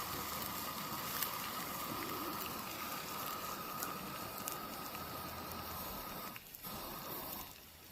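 Leftover spaghetti and butter sizzling in a frying pan over a Coleman 502A stove, a steady hiss with scattered small crackles, running hot enough to start scorching. The sound drops away briefly twice near the end.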